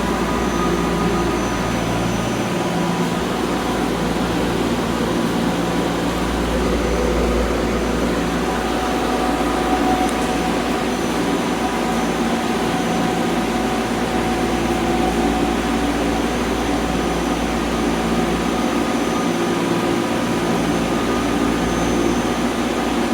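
Steady mechanical drone of air-handling machinery: an even rush with a low rumble and several held tones that stay at fixed pitches, unchanged throughout.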